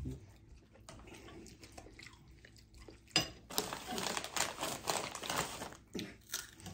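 Foil-lined Takis chip bag crinkling as a hand reaches in, starting sharply about three seconds in and lasting a couple of seconds; soft clicks of eating come before it.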